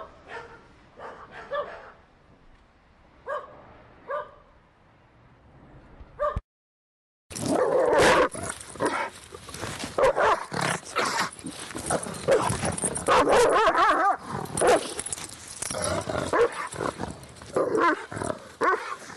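A group of dogs barking in short, scattered barks; after a brief silence about seven seconds in, an angry dog barks loudly and almost without pause.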